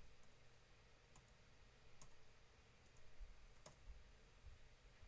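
A few isolated sharp computer mouse clicks over near-silent room tone, the two clearest about two seconds and three and a half seconds in.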